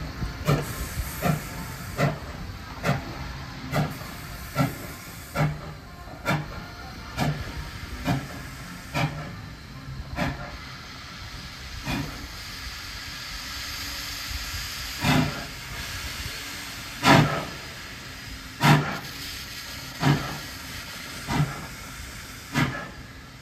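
Steam exhaust of a 1943 Baldwin steam locomotive, chuffing at a slow, uneven beat over a steady hiss of steam. The chuffs come a little under a second apart at first and then spread out to one every second and a half or two.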